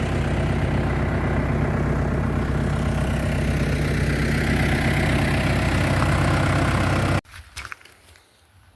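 Car engine idling steadily, then switched off about seven seconds in, leaving only faint small sounds.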